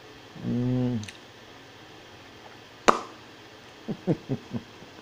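A man hums an appreciative 'mmm' while tasting a sweet spread, about half a second long. A single sharp click follows about three seconds in, then a short chuckle near the end.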